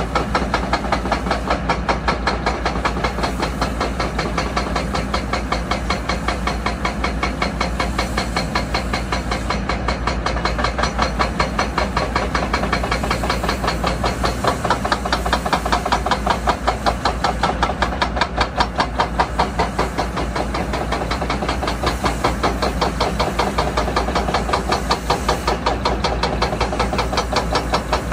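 Heavy construction machinery running: a low engine drone with a fast, even knocking and a hiss of air over it.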